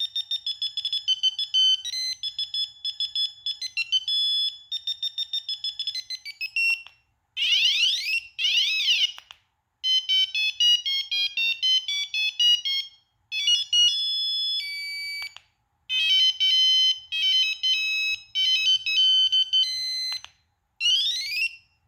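Kyocera 2235 phone playing its preloaded electronic beeping ringtones one after another, each a few seconds long with short gaps between them. About seven seconds in, one ringtone is made of rising and falling chirp sweeps. Another ends the run with quick rising sweeps.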